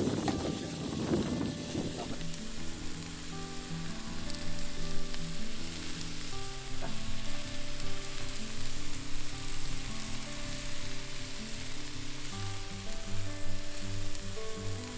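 Succotash of corn and squash sizzling in a cast iron skillet over a hot grill fire, with a wooden spoon stirring and scraping through it, most heavily in the first couple of seconds. Soft background music with held chords runs underneath.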